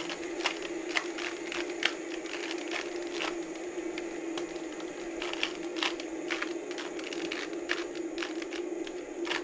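Plastic clicking and clacking of a 2x2 Rubik's cube being turned fast in a speed solve: short irregular clicks, several a second, over a steady low hum.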